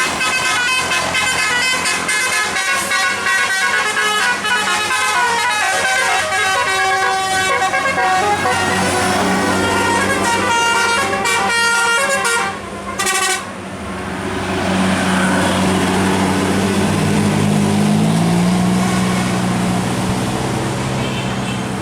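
Bus 'telolet' musical air horn playing a tune of quick, stepping horn notes for about twelve seconds. It stops briefly, then the bus's engine runs, its pitch climbing a little.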